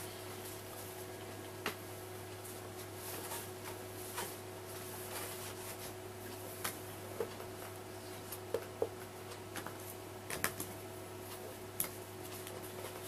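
Faint taps and clicks from handling and writing on a board with a marker and cloth, over a steady low hum.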